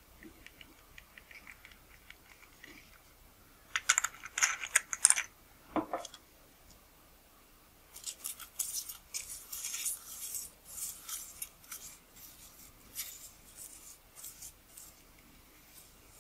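Optical cleaning paper rubbed over the rear glass element of a Nikkor 50mm f/1.2 lens, in quick scratchy wiping strokes from about halfway on. Before that, about four seconds in, there is a brief burst of loud scratchy noise, and earlier still a few faint small clicks.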